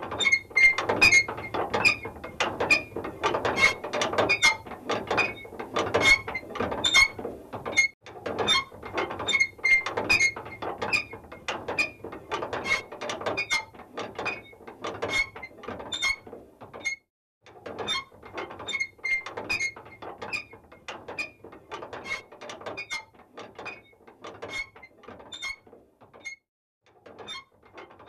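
Mechanical clicking and ratcheting: a rapid, irregular run of sharp clicks over a faint low hum. It breaks off briefly about 8, 17 and 26 seconds in and grows fainter toward the end.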